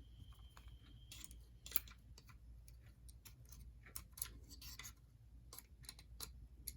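Faint, irregular small clicks and taps of small clear plastic parts being handled and pressed into a model locomotive's body.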